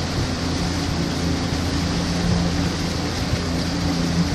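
Rabelo boat's motor running steadily under way, an even low hum with a steady hiss over it.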